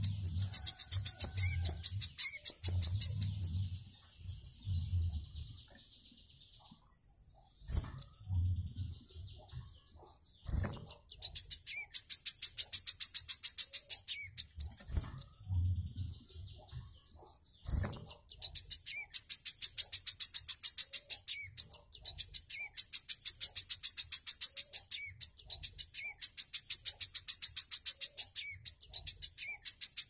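A caged wiceh sunbird singing a fast, high-pitched trill of rapidly repeated notes in runs of a few seconds with short breaks. The song drops away for a few seconds near the start, then comes back and keeps going, with a few brief knocks in between.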